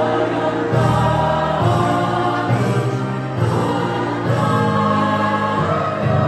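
Women's choir singing, with a steady low accompaniment whose bass notes change about once a second.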